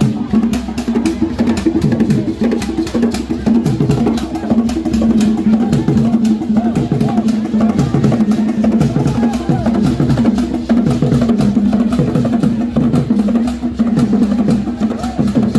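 Music with drumming: fast, dense percussion strikes over a steady low tone, with short repeated downward-gliding low notes.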